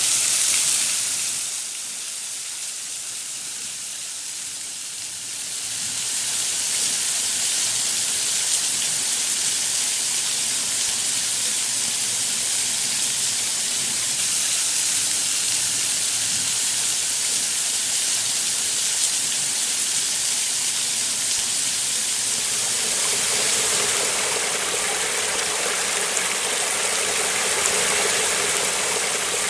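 Rushing water of a waterfall on the Swabian Jura, a steady hiss. It drops lower for a few seconds just after the start, then comes back, and turns fuller with a deeper rush near the end.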